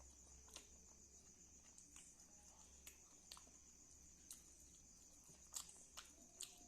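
Faint eating sounds: scattered soft clicks and smacks of chewing, a dozen or so spread unevenly, over a steady high-pitched whine.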